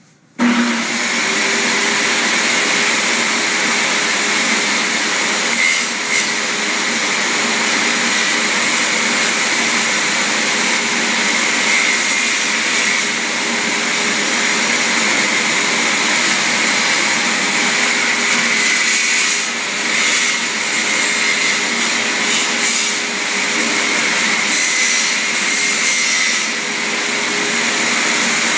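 An electric tool motor switches on abruptly and runs at a steady, unchanging speed, with a few brief small dips in level.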